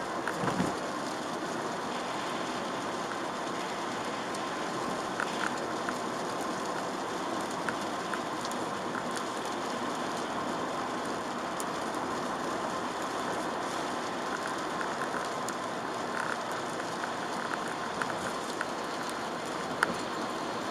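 Steady hiss of rain and tyres on a wet road heard from a moving car, with scattered light taps of raindrops. A brief low thump comes about half a second in.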